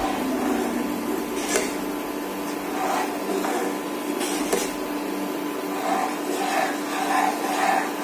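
A plastic spoon stirring and scraping a thickening milk and cornflour pudding around a non-stick pan, with a few sharper scrapes against the pan, over a steady hum.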